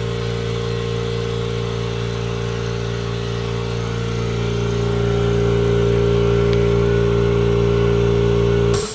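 Kobalt Quiet Tech 26-gallon air compressor running with a steady hum, growing a little louder about four seconds in. It cuts off suddenly near the end with a brief hiss.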